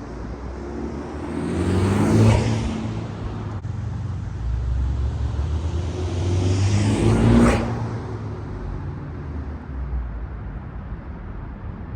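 Honda Civic Type R FL5's turbocharged 2.0-litre four-cylinder engine revving twice, about five seconds apart. Each time the pitch climbs and then falls off sharply, with the intake noise of a K&N high-flow air filter.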